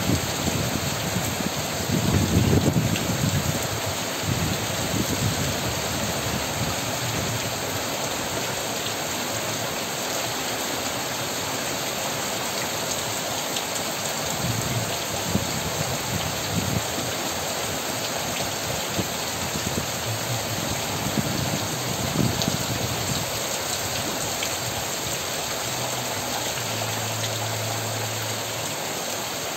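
Heavy rain falling steadily on leaves and the ground, a dense even hiss, with a few low rumbles now and then, the strongest about two seconds in.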